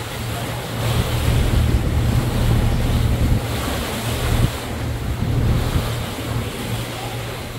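Wind buffeting the microphone on a moving boat, over the steady drone of the boat's engine and water rushing past the hull.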